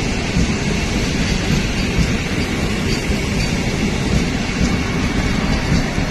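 Vande Bharat Express electric trainset passing by. Its wheels make a steady rumble on the rails.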